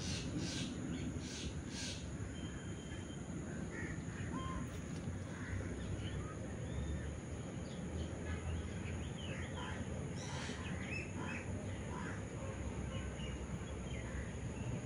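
Birds chirping and calling here and there, with a cluster of repeated calls at the start and another about ten seconds in, over a steady low background rumble of outdoor ambience.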